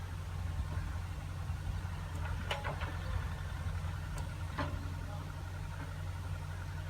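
Heavy diesel machine engine running steadily at low revs, with two short sharp knocks about two and a half and four and a half seconds in.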